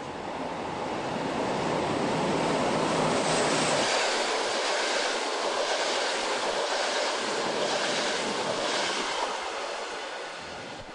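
Electric locomotive-hauled train of double-deck commuter coaches passing close by at speed: a rushing of wheels on rail and air that swells as it arrives, holds with a faint regular pulsing about once a second, and eases off near the end as the train moves away.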